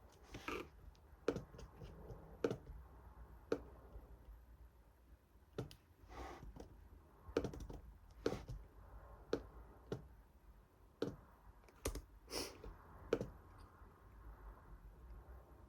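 Study-desk sounds: scattered sharp clicks and taps, about one a second and unevenly spaced, with a few brief rustles in between.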